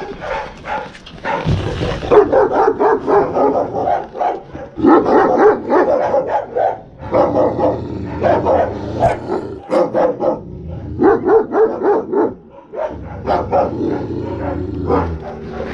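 Repeated bouts of canine barking and growling, a few seconds each with short breaks, from an Alabai and a Canadian wolf confronting each other through a cage fence.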